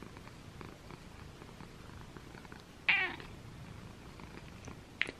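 Domestic cat purring as its head is stroked, with one short meow about three seconds in that falls quickly in pitch.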